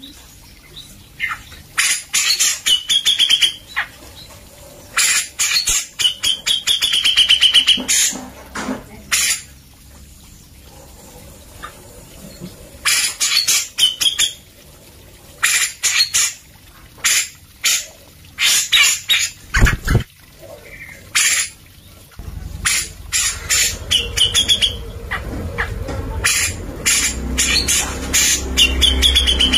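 Grey-cheeked bulbul (cucak jenggot) singing in repeated bursts of rapid, harsh chattering notes, each with a short whistled phrase, several seconds apart. A low hum comes in about two-thirds of the way through.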